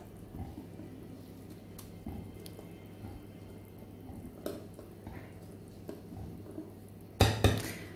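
Fingers working a soft, oily yeast dough of flour and milk in a bowl: quiet squishing and rustling with a few faint ticks over a steady low hum. A thump about seven seconds in is the loudest sound.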